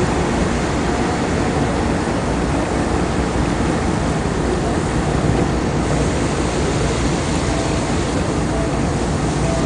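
Ferry's engines running steadily with the propeller wash churning the water behind the stern, a continuous low rumble and rushing noise.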